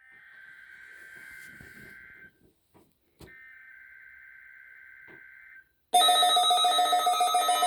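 Two bursts of the EAS SAME header from NOAA Weather Radio, the two-tone digital data screech that encodes a Required Weekly Test alert. Each burst lasts a little over two seconds with about a second's pause between. About six seconds in, a much louder steady electronic sound made of several tones at once comes in and holds.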